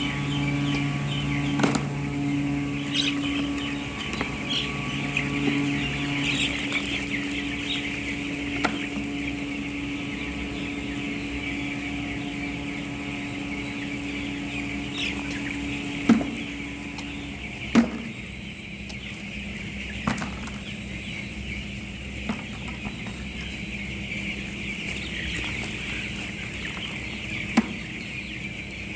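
A brood of chicks peeping continuously in a high, busy chorus. A steady low hum runs under it, stopping in two steps, about six and about seventeen seconds in. A few sharp knocks come in the second half.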